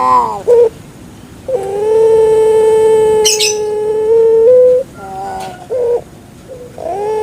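A male puter pelung (Barbary dove, Streptopelia risoria) cooing. A few short notes lead into one long, drawn-out coo held for about three seconds, which steps up slightly before it ends. More short notes follow, and another long coo begins near the end. About three seconds in there is a brief high chirp.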